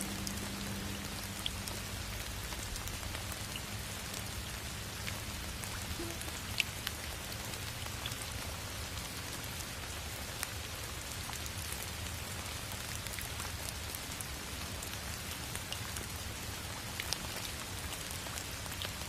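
Steady rain sound, an even hiss with scattered sharp drop ticks, over a faint low hum.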